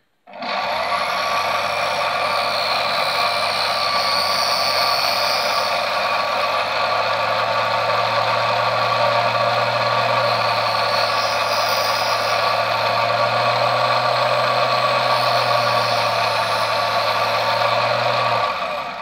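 Small belt-driven lathe motor and spindle running steadily while the tool takes a thin facing cut off the back of a model railway wheel. It starts abruptly just after the start and stops shortly before the end.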